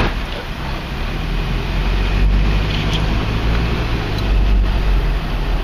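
Truck driving, heard from inside the cab: a steady low engine hum with road and wind noise.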